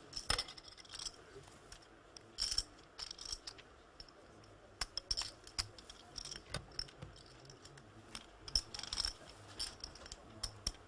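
Poker chips clicking against each other in short, irregular clusters of rapid clicks as they are handled at the table.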